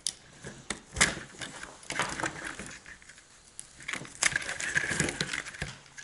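Hands working a taped Chevy Volt battery wiring harness with a utility knife: scattered clicks and crackles from its plastic connectors and tape, with a longer scraping stretch from about four seconds in.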